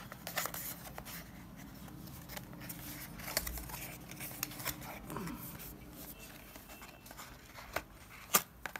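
Cardboard packaging being handled: a box flap folded open and the inner box slid out, with scattered scrapes and small clicks and a sharper click near the end.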